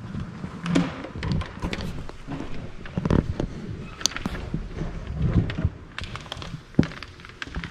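Footsteps and irregular knocks and clicks of handling at a wooden pulpit, some louder than others, with a low room rumble.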